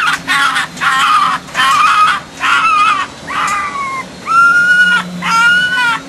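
Hungry red fox cub calling for food: a string of high-pitched cries, about nine in six seconds, short at first and longer toward the end.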